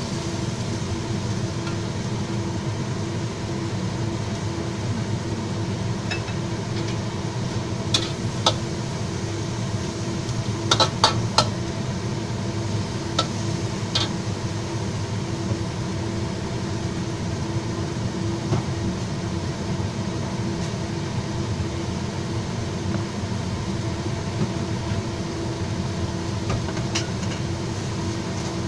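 Stir-fry of pork and celery sizzling in a metal wok over a steady hum, with a metal spatula clinking sharply against the wok several times, mostly in a cluster around the middle.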